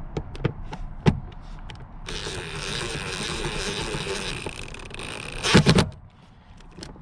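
Power impact wrench with a Torx 50 bit running down a seat belt anchor bolt: a few light clicks of the bit and bolt being handled, a steady whirr of about three seconds as the bolt spins in, then a short loud burst near the end as it hammers the bolt tight.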